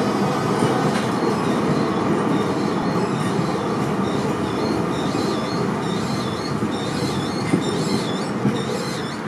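Düwag TW6000 tram rolling past close by, its wheels running on the rails with a steady rumble and a high wavering squeal that comes and goes about twice a second.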